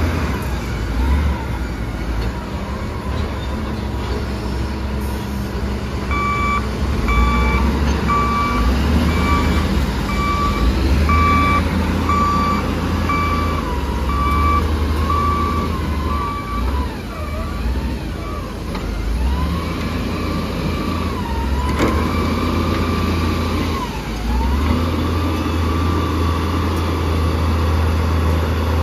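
Heavy diesel truck and loader engines running with a steady low drone. A reversing alarm beeps a little faster than once a second for about ten seconds, starting about six seconds in. Later a whine wavers up and down in pitch, and there is a single sharp knock.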